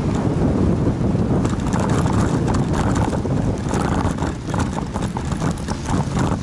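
Wind buffeting the microphone of a camera on a moving bicycle. From about a second and a half in, the bike rattles and clatters over uneven stone paving.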